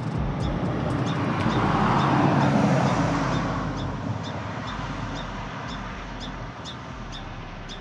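A car passing by, its road noise swelling to a peak two or three seconds in and then slowly fading away. A short high chirp repeats about twice a second throughout.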